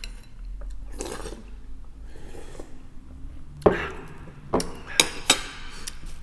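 Metal spoon clinking against a bowl of borscht while eating, with several sharp clinks in the second half.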